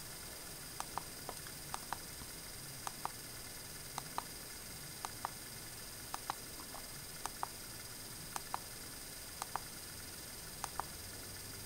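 Faint, regular clicking in pairs, about one pair a second, over a steady hiss with a thin high whine.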